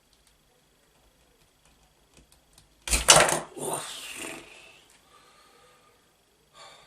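Handling of a plastic RC car chassis and its parts: a few faint clicks, then a loud clatter about three seconds in that dies away over a second or so, as a stubborn part is worked free.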